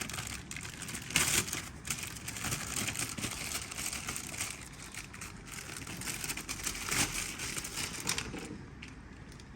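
Plastic packaging crinkling and crackling in irregular bursts as a new set of ignition leads is unwrapped and handled, dying down near the end.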